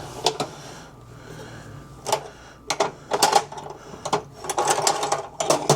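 Hand tools clicking and clinking against the metal bolts holding a scooter's top case: a string of sharp clicks, sparse at first and coming thick and fast in the second half.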